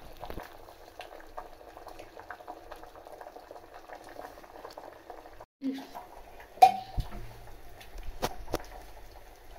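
Sambar bubbling at a low boil in an open pressure-cooker pan, a soft steady popping. After about five and a half seconds it cuts off, and a few sharp metal clanks of pans on the stove follow, the loudest about a second later.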